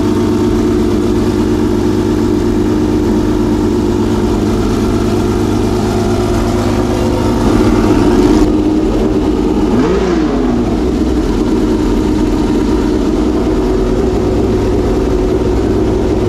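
Homemade V12 race engine running with a steady, even note, with a brief blip in revs, a quick rise and fall in pitch, about ten seconds in.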